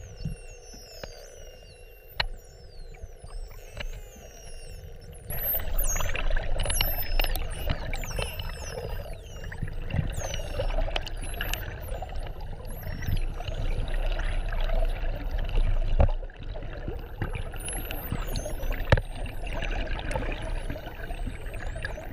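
Water pouring or trickling steadily, getting louder about five seconds in, with many quick high chirps over it.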